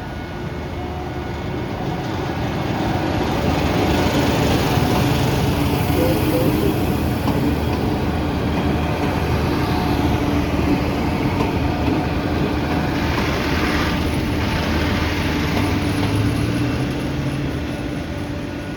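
A train passing close by: the rumble of its engine and wheels on the rails builds over a few seconds, stays loud for about twelve seconds, then eases off near the end.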